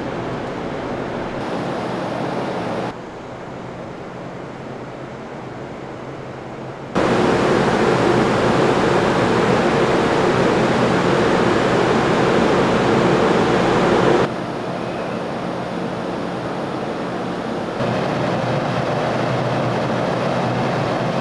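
A ship's engines and exhaust from its funnel running at the quay: a steady roar with a low hum underneath. The level jumps at several cuts and is loudest through the middle.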